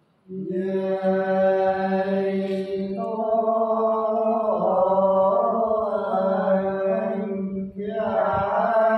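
Unaccompanied Sán Dìu soọng cô folk singing by male voices in a slow, chant-like style: long held notes that waver in pitch over a steady low tone. The singing breaks briefly for a breath near the end, then carries on.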